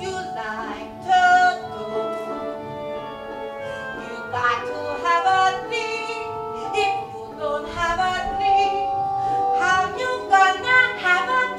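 A woman singing a Broadway show tune in a full voice, holding long notes, over a steady instrumental accompaniment.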